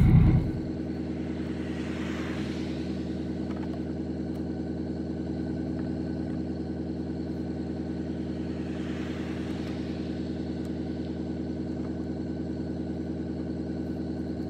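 Vehicle engine idling steadily, an even hum with a fast regular pulse. A soft hiss swells up and fades twice, about two seconds in and again about nine seconds in.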